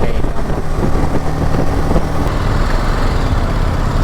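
Single-cylinder engine of a BMW G 310 GS motorcycle running steadily at low, even revs.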